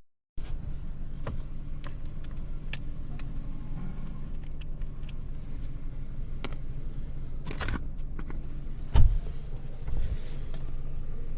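Steady low hum of a car running, with scattered light clicks and a heavier thump about nine seconds in.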